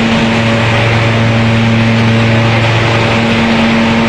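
Hazelnut thresher (patoz) running steadily while husking and cleaning hazelnuts: a constant engine-like drone with a low hum, over a dense, even rushing noise.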